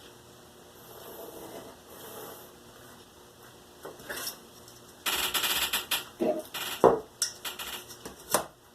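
Cardboard model-building materials and tools being handled: a harsh rasping sound of about a second, then a run of sharp clicks and knocks.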